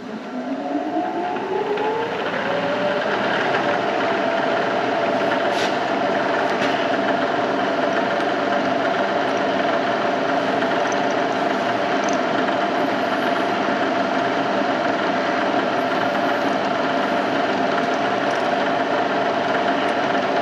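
Milling machine spindle starting up, its whine rising in pitch over the first two or three seconds and then running steady, while a 3 mm drill bit bores a small pin hole in a steel shaft.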